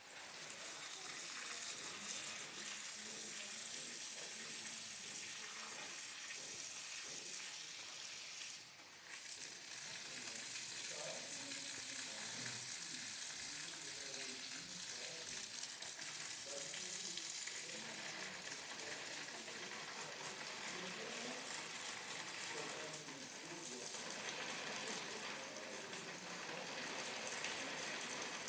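Forest ambience dominated by a steady, high-pitched drone of forest insects, with a brief drop in level about a third of the way through and faint scattered lower sounds underneath.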